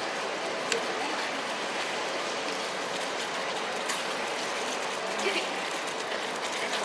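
Curry sauce with chicken steadily crackling and bubbling in the pan as it cooks, with a couple of light clicks.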